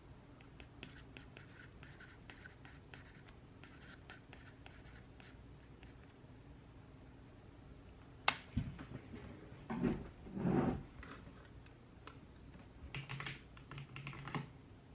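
Typing on a computer keyboard: a run of light key taps, a sharp click a little past eight seconds in, then a few louder bumps, and another burst of typing near the end.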